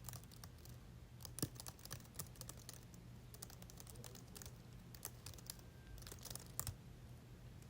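Irregular light clicks and taps, several a second and uneven in spacing, over a steady low hum.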